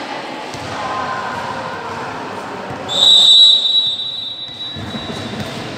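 Referee's whistle blown once in a long, steady, high blast about three seconds in, fading out over the next second or so: in volleyball, the signal that authorises the serve.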